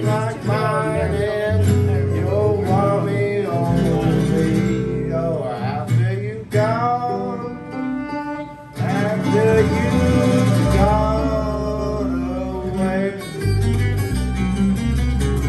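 Live acoustic swing music: a fiddle plays a wavering lead melody over strummed acoustic guitars and low stepping bass notes, with a brief drop in loudness about halfway through.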